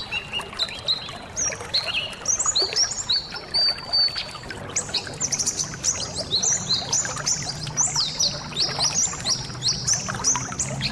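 A colony of white-eyes (pleci) chirping and twittering over one another, growing busier about halfway through, over trickling water.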